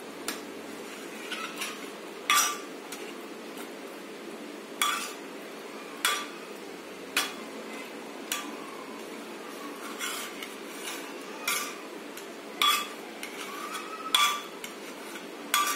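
A metal-headed vegetable masher knocking against the inside of a pressure cooker pot while mashing soft-boiled vegetables. Sharp clinks come about once a second, some in quick pairs, with soft squishing between.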